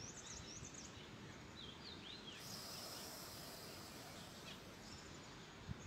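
Faint bird chirps, then from a little under halfway a soft, even hiss of air drawn in through a rolled tongue: a Sitali pranayama inhalation. A small knock comes just before the end.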